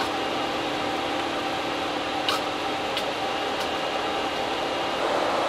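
Steady flight-deck noise of an Airbus A350 in its climb: a rushing hiss of airflow and air conditioning with faint steady tones, a few light clicks about two to four seconds in, growing slightly louder near the end.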